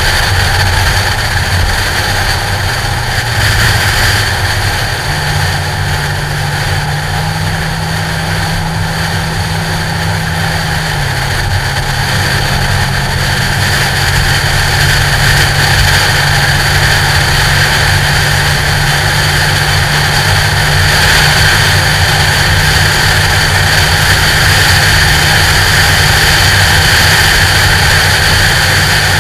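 Steady rush of wind noise on a hood-mounted action camera inside its protective cover as a Ford Mustang drives along, over the low hum of the car's engine. The engine note steps up in pitch twice in the first several seconds and drops back about eleven seconds in.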